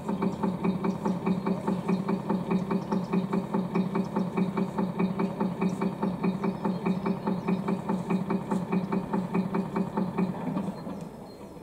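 RC model fishing cutter's sound module playing a ship's diesel engine idling with a steady chugging beat, about six beats a second. It stops near the end.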